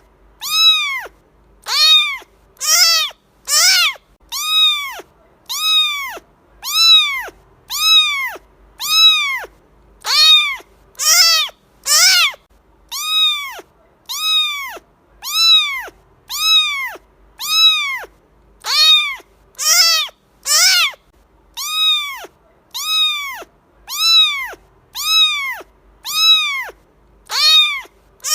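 A cat meowing over and over at an even pace, about one meow a second. Each meow is a short call that rises and then falls in pitch, and a few of them are louder and brighter than the rest.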